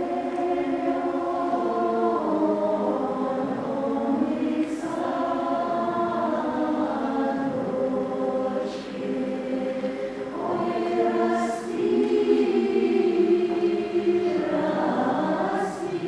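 Mixed men's and women's folk choir singing a cappella: a Ural drawn-out (proglosnaya) folk song in several voice parts, with long held notes in phrases and short breaks between them.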